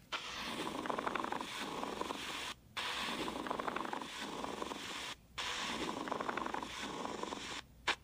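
Pleural friction rub heard through a stethoscope: a grating sound like leather rubbing together, made by inflamed pleura rubbing against each other, the sign of pleurisy or pleural irritation. It comes as three stretches of about two and a half seconds each, with short breaks between.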